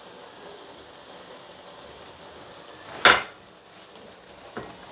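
Pot of chicken biryani sizzling softly on a gas burner, with a single sharp knock about three seconds in.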